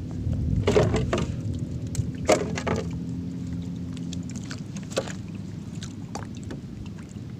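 Scattered knocks and bumps on a small wooden outrigger boat while a gillnet is hauled over the side, with water and wind noise beneath. A steady low hum runs underneath and stops about four seconds in.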